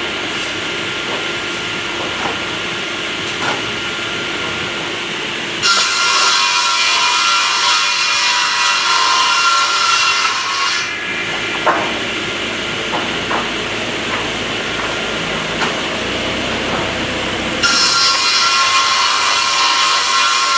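A Lignuma MN-315 three-blade edging saw running. It gets louder and harsher for about four seconds starting some six seconds in, and again near the end, as its blades cut through wood. A few sharp knocks come between the cuts.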